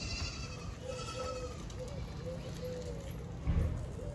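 Goat bleating in a long quavering call, with a brief low thump near the end.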